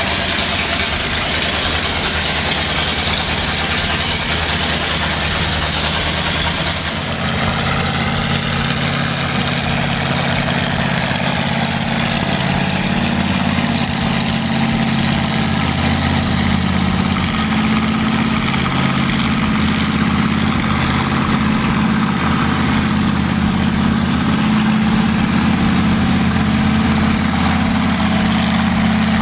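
Chevrolet V8 engine swapped into a Farmall tractor, running steadily near idle as the tractor moves off. About seven seconds in the engine note changes to a steadier, deeper hum.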